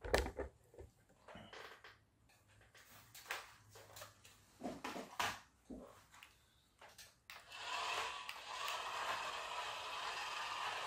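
Several seconds of scattered light clicks and knocks, then, from about seven seconds in, the steady whir of a cheap toy radio-controlled car's small electric motor and plastic gears as it drives across a hard floor.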